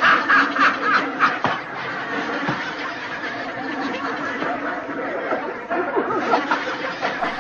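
A man laughing hard, in quick repeated bursts at first and then more continuously, with the dull, thin sound of an old television recording.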